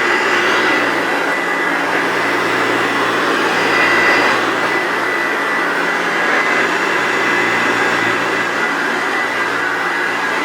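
1985 Hoover Turbopower Junior U1102 upright vacuum cleaner running steadily, mostly a rush of airflow with a faint steady whine. Its freshly washed, empty bag leaves the sound unmuffled.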